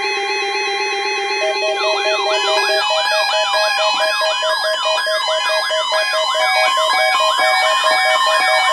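Weather-radio emergency alert test signal. It opens with layered steady electronic tones and a short hissing data burst; about one and a half seconds in, rapid siren-like warbling sweeps take over and repeat about three times a second over steady tones.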